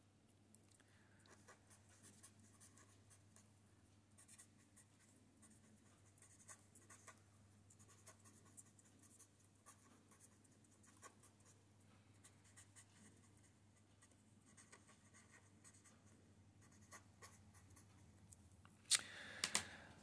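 Felt-tip marker pen writing on paper: faint, scattered scratches and squeaks of the tip forming letters, over a low steady hum. A short, louder noise comes near the end.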